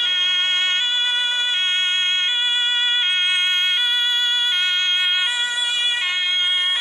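German police BMW 3 Series patrol car's two-tone siren (Martinshorn), switching steadily back and forth between a high and a low tone, each held for about three quarters of a second.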